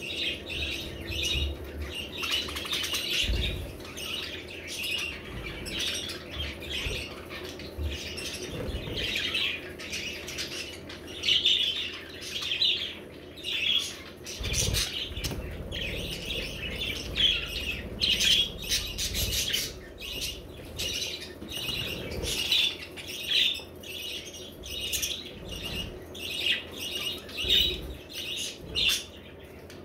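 A group of budgerigars chattering and chirping continuously in quick, high warbling notes, with a few low thumps.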